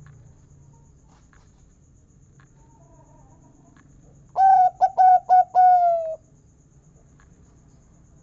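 Zebra dove (local perkutut) cooing: one phrase of four quick notes and a longer final note that falls slightly in pitch, starting about halfway through.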